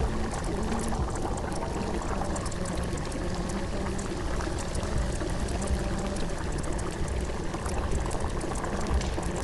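Steady running-water sound, an even rushing with no breaks.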